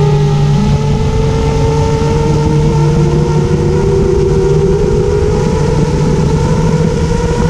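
FPV quadcopter's brushless motors whining steadily as the craft sits on the ground, with a low rumble under several held tones, one of them slowly rising in pitch.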